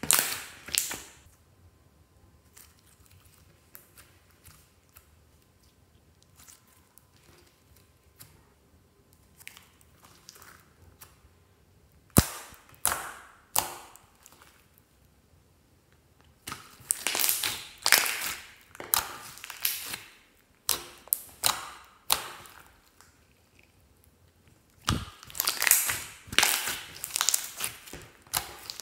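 Hands squishing and kneading glossy slime, with sharp pops and crackles as trapped air pockets burst. Mostly quiet at first with a few faint clicks, then one sharp pop around twelve seconds in, and two longer runs of rapid crackling and popping, the second near the end.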